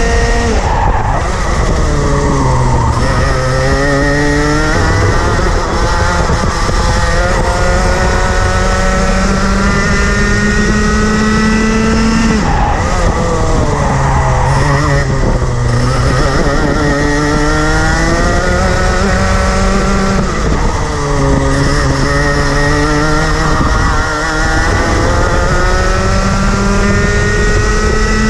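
Rotax Max Junior 125cc single-cylinder two-stroke kart engine at racing speed, close up: its pitch climbs steadily down the straights and falls sharply under braking for the corners, about a second in, near the middle and again about two-thirds through.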